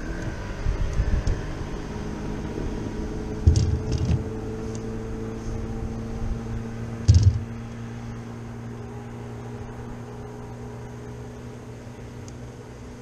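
A boat motor humming steadily, a low drone with a higher whine above it, easing down a little after about seven seconds. Two dull thumps cut through it, about three and a half and seven seconds in.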